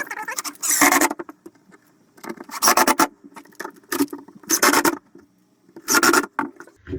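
Four scraping strokes about two seconds apart: shelf pieces rubbing against each other as they are worked together.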